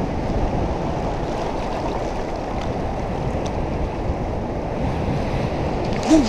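Gulf surf washing around the legs of a wading angler, mixed with steady wind on the microphone, an even rushing noise. A brief vocal sound comes near the end.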